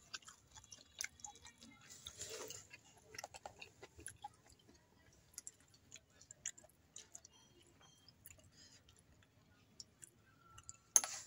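Close-up chewing of fried gobi manchurian (battered cauliflower), with scattered small wet mouth clicks and smacks. A short loud noise comes near the end.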